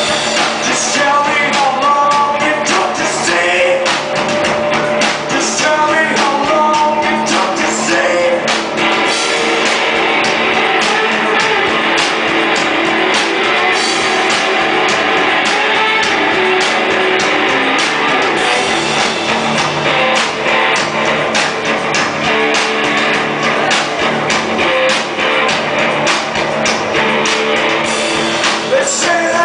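Rock band playing live with a lead singer, the music loud and unbroken. The singing is clearest in the first third and again near the end, with a dense instrumental stretch in between.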